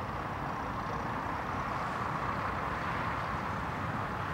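British Rail Class 56 diesel locomotive engines running steadily, with exhaust haze hanging over the line as one locomotive moves off under the bridge.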